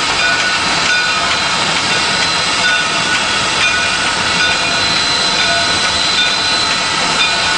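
Steady, loud running noise inside the cab of the Shay No. 9 geared steam locomotive: a continuous mix of steam hiss and mechanical rattle, with faint short tones coming and going through it.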